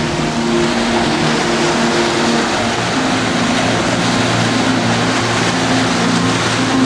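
Ocean waves breaking and washing up a sand beach among rocks: a steady rush of surf. Background music plays under it.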